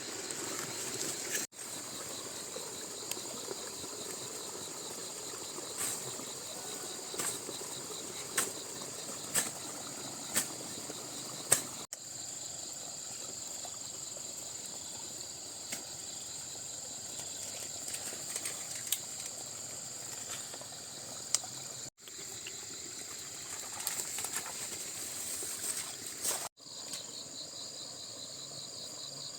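Steady, high-pitched insect chorus, broken off abruptly a few times, with a run of sharp knocks about once a second partway through.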